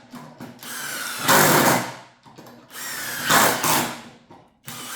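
Cordless impact drivers driving screws in short bursts: each starts with a rising motor whine and breaks into rapid loud hammering, three bursts of about a second and a half each, the last starting near the end.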